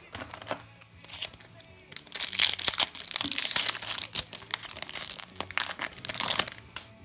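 Trading-card booster pack wrapper being crinkled and torn open: a few scattered crackles, then a dense, loud run of crinkling from about two seconds in that stops shortly before the end.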